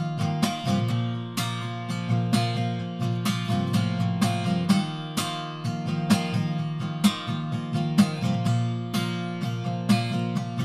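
Steel-string acoustic guitar strummed in a steady rhythm, an instrumental passage between sung lines of a live song.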